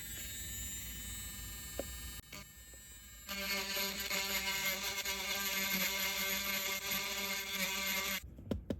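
Small handheld rotary tool running with a steady whine, then louder and rougher from about three seconds in as it grinds down a resin 3D-printed part, stopping shortly before the end.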